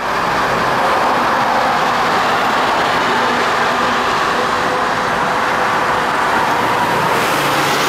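Steady din of road traffic and an approaching R32 subway train on the steel bridge tracks, with a faint steady whine.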